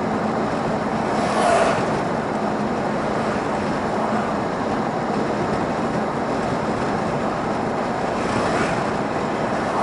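Steady engine and tyre noise of a car driving along a road, heard from inside the cabin, with a slight swell about a second and a half in.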